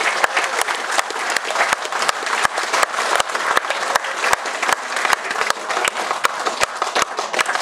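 An audience applauding, steady clapping with loud individual hand claps close by standing out from it.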